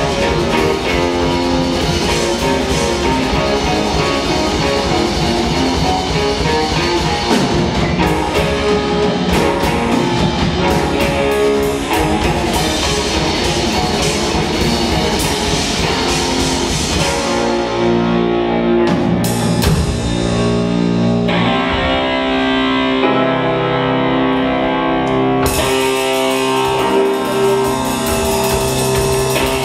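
Live rock band playing electric guitars, bass, drum kit and keyboard. Past the middle, the drums and cymbals thin out for several seconds, leaving held chords, and then the full band comes back in.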